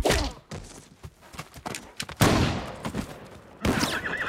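Fight sound effects: a sharp punch hit at the start, then a heavy, loud impact about two seconds in that dies away. Near the end a horse whinnies.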